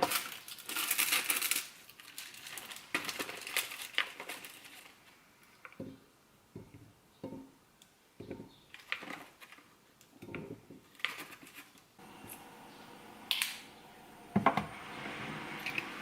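Kitchen handling sounds: a burst of crinkling, then scattered light clicks and knocks, and near the end a microwave oven starts running with a steady hum.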